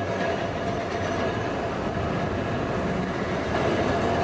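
Street tram running along its track: a steady rumble of wheels on rail with a steady high tone held over it.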